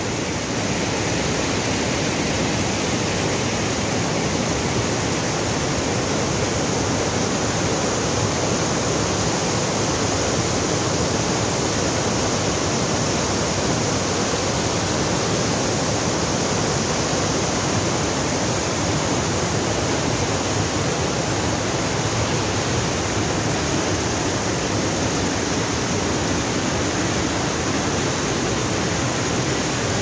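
White water rushing steadily over a stepped cascade of rock slabs in a mountain river.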